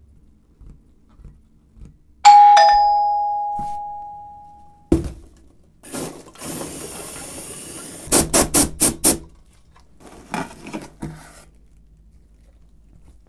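A doorbell chimes once about two seconds in, its two tones ringing out and fading over a couple of seconds. A thump follows, then rustling of packing peanuts and cardboard as a parcel is opened, with a quick run of about five sharp crunches and more rustling near the end.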